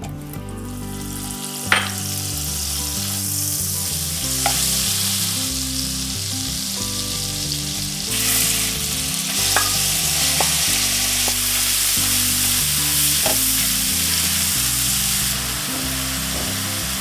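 Butter sizzling in hot olive oil in a skillet. About halfway through the frying gets louder as ground chicken goes into the pan and is pushed around with a wooden spatula. A few sharp clicks sound against the pan.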